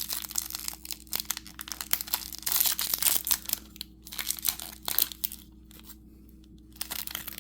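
Crinkly wrapper of a Doorables blind-bag mini figure being torn open and rustled by hand, a run of sharp crackles and rustles that goes quiet for a moment about five seconds in before a few more crackles.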